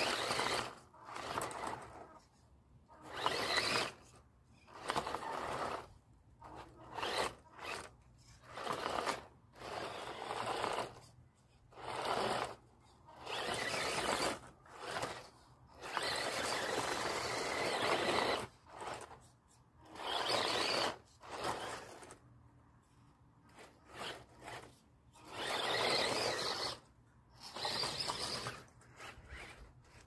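Remote-control car's motor and spinning wheels in repeated bursts of throttle, each about a second long, with short pauses between. The tyres churn and scrape in loose sandy dirt as the car struggles up the steep wall of a hole.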